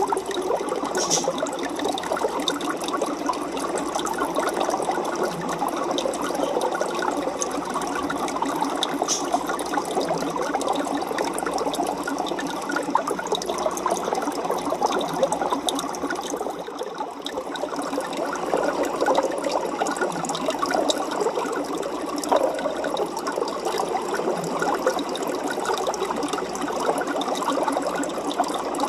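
Aquarium water bubbling and splashing steadily, a dense fizzing crackle of bubbles that eases off briefly about halfway through.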